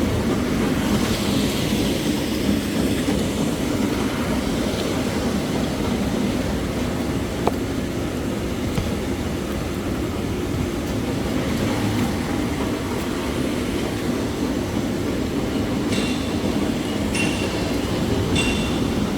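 Toilet tissue paper production line machinery running with a loud, steady rumble. Near the end, short high-pitched chirps repeat about once a second.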